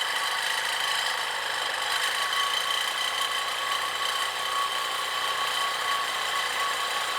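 Power tool cutting through a steel exhaust hanger, running steadily with a high whine.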